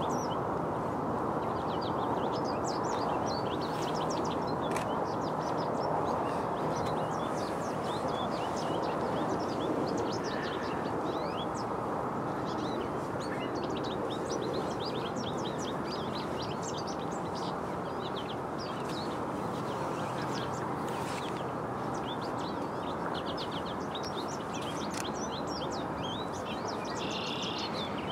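Many small songbirds chirping and twittering continuously over a steady background rush of noise.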